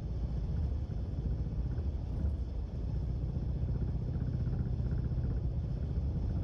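Subaru car on the move, a steady low rumble of road and running-gear noise.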